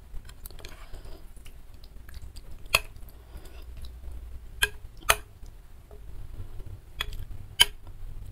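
A metal spoon and fork clink against a bowl of meatball soup as the food is mixed. There are five sharp clinks, two close together in the middle and two more near the end, with softer scraping between them.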